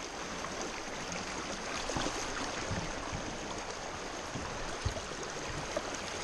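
Strong, fast river current rushing over rocks and splashing against a kayak, with a short knock about five seconds in.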